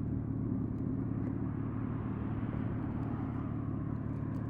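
BMW twin-turbo straight-six engine idling steadily at a low, even pitch, with no revving.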